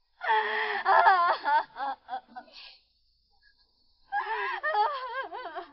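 A woman wailing and sobbing, her cry wavering up and down in pitch, in two bouts with a pause of about a second and a half between them.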